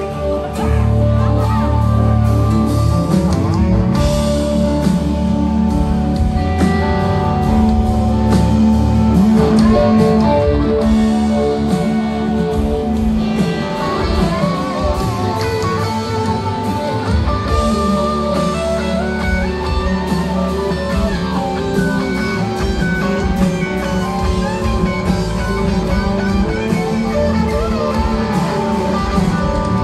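Southern rock band playing live, an instrumental passage with a lead electric guitar line over bass, drums and keyboards, the music getting louder about a second in. Heard as a loud recording from within the audience.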